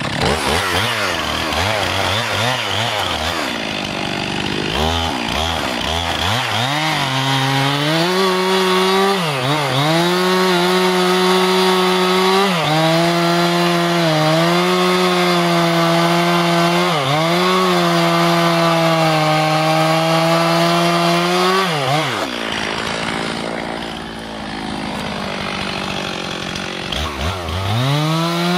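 Stihl MS 362 two-stroke chainsaw revving up and down, then held at full throttle cutting through wood, its pitch dipping briefly under load. About two-thirds of the way through the engine eases off, then revs up again near the end.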